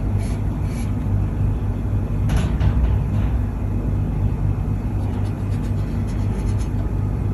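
A steady low hum throughout, with a few faint short scratches of a marker pen drawing on the painted aluminium kettle, the clearest about two seconds in.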